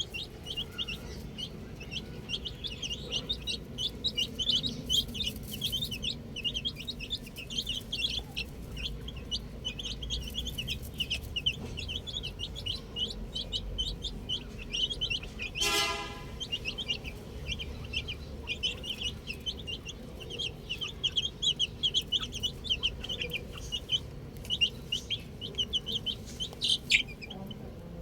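A flock of chicken chicks peeping: many rapid, high, overlapping cheeps that go on without a break. About sixteen seconds in there is one short, louder and lower bird call.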